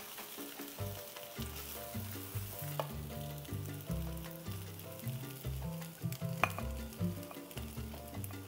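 Fried rice sizzling in a hot wok as it is scooped with a spatula, with a few light clicks of the utensil. Soft background music with a bass line plays underneath.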